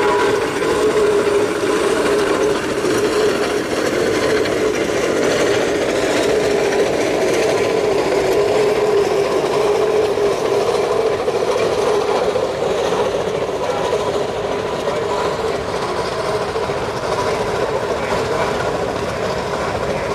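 Steam traction engine passing close, then a steam roller approaching: steady, loud mechanical clatter of the steam engines running.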